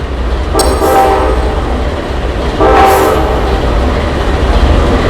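BNSF diesel locomotive's air horn sounding two blasts of about a second each, each a chord of several tones, the first about half a second in and the second about two and a half seconds in, over a steady low rumble.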